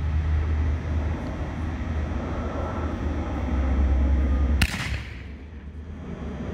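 A 6-inch King Dragon canister shell fires from its mortar tube about two-thirds of the way in: one sharp thump of the lift charge, with a short echo. Before it there is a steady low rumble.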